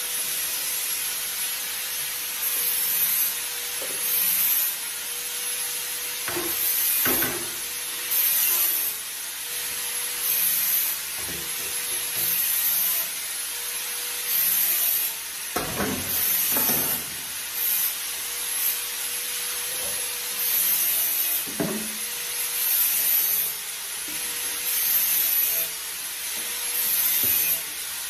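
Dishes being scrubbed by hand at a sink, a rhythmic rubbing that swells and fades about every one and a half seconds. A few knocks of metal dishware against the sink come in between, twice in quick pairs.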